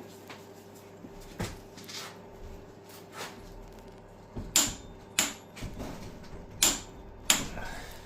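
Sharp clicks and metal knocks of hand tools working on engine parts, about seven of them spread unevenly, louder from the middle on.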